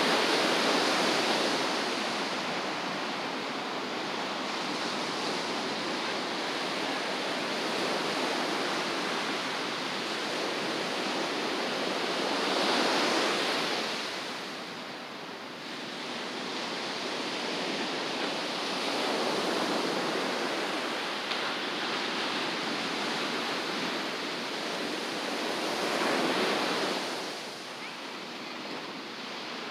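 Ocean surf: a steady wash of breaking waves, with a louder break at the start, another about 13 seconds in and another about 26 seconds in, each easing off afterwards.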